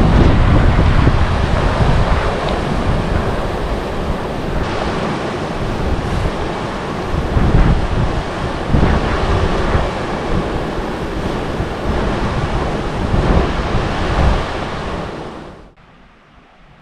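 Rushing river water with wind buffeting the microphone in gusts; it fades down sharply near the end.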